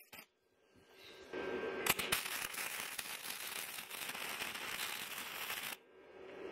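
Flux core welder arc crackling steadily as a bead is laid along a cracked seam of a metal mower deck. It starts about a second in and cuts off suddenly near the end.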